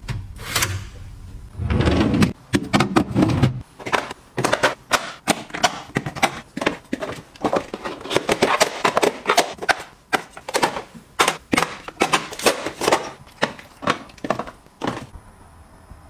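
Plastic tubs, bottles and cartons being set down and shuffled into a refrigerator's plastic door bins: a quick run of clicks, taps and knocks. There is a heavier low sound for a second or two near the start.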